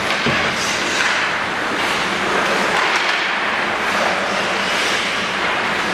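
Hockey skate blades hissing and scraping on rink ice, swelling and fading as players skate past, with a low steady hum underneath.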